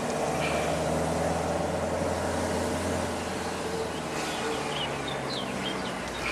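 Car driving along a narrow lane, heard from inside the cabin: a steady engine hum with road noise. A few short high chirps come about two-thirds of the way through.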